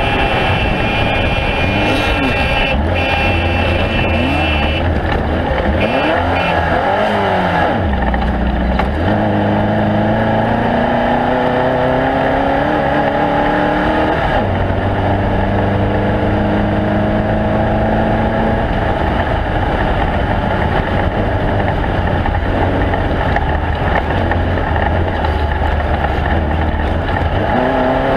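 Off-road race vehicle's engine running hard over a steady rush of noise, its pitch climbing as it revs and dropping back several times.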